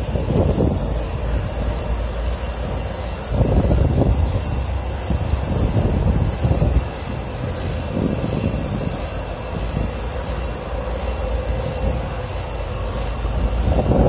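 Vacuum pump running with a steady low drone, pulling a vacuum on an air-conditioning unit's refrigerant circuit through the gauge hose after a leak repair; it grows louder about three seconds in and eases back a few seconds later.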